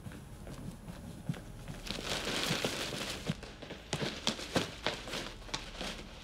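Footsteps on a hard path, a few a second, with a short rustling hiss just before them.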